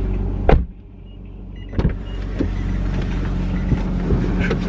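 Inside a parked car's cabin: a steady low hum, broken by a sharp thump about half a second in, another just before two seconds, and a few light clicks, like doors shutting and people moving in the seats.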